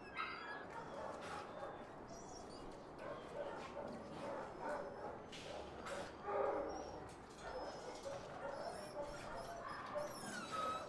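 Dogs whimpering and yipping in short, scattered calls, some sliding down in pitch.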